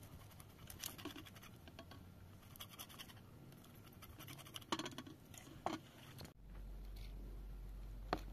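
Soft scraping and rustling of fingers and bread on a plate, with a few light clinks of glass tea glasses and a kettle on a metal tray. About six seconds in, a steady low hum starts and carries on under the clinks.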